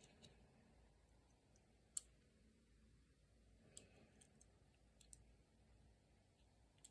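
Near silence broken by about half a dozen faint, scattered clicks, the loudest about two seconds in: a small die-cast toy car being handled and turned over in the fingers.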